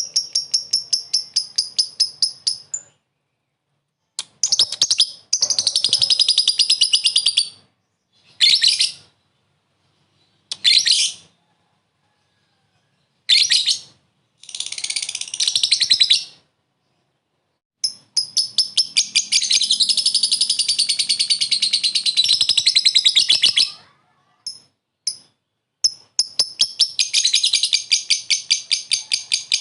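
Lovebird ngekek: bouts of rapid, high-pitched chattering chirps, from under a second to about six seconds long, broken by short silences. This is the short ngekek keepers play to call rival lovebirds into answering.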